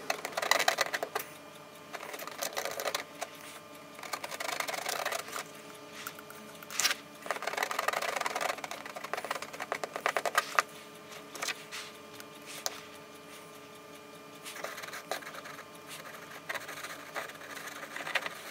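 Hot plastic-welder tip scraping and rasping over metal wire mesh as it is pressed into the softened polyethylene wall of a water tank, in irregular bursts with short pauses between strokes.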